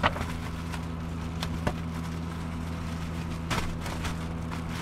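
A steady low mechanical hum, with a few light clicks and rustles as a new pleated cabin air filter is handled.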